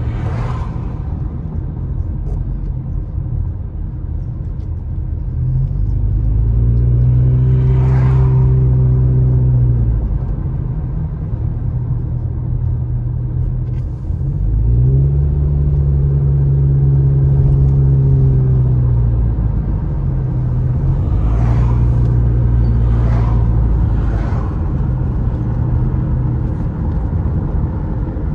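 Car engine and tyre rumble heard from inside the cabin while driving. Twice the engine note climbs into a steady, louder drone as the car speeds up, once for about four seconds and once for about five. A few brief whooshes come from oncoming cars going by, three of them close together near the end.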